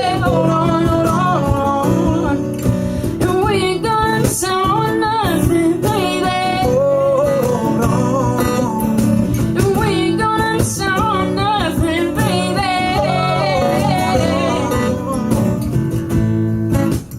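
Live acoustic performance of a country-pop song: singing with long, wavering held notes over acoustic guitar.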